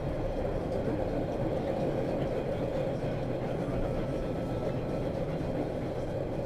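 Subway train running steadily, heard from inside the car: an even rumble of wheels on rails with a faint high whine.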